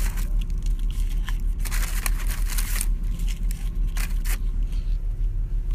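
A man hurriedly stuffing fast-food fries into his mouth and chewing with his mouth full. There are bursts of rustling and munching, the longest from about a second and a half in to nearly three seconds, over a steady low hum inside a car.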